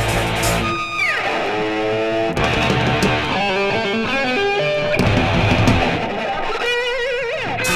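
1980s hard rock recording: a distorted electric guitar plays a lead line over bass and drums. The lead slides steeply down in pitch about a second in and bends with a wavering vibrato near the end.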